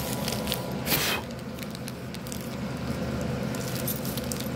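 Crunching and chewing a Butterfinger candy bar close to the microphone: scattered crisp crackles, with a sharper, louder crunch about a second in. A steady low hum runs underneath.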